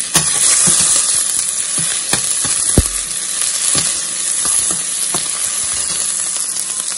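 Sliced onion and whole spices sizzling steadily in hot oil in a steel pan, stirred with a slotted metal spatula that scrapes and knocks against the pan. The loudest knock comes about three seconds in.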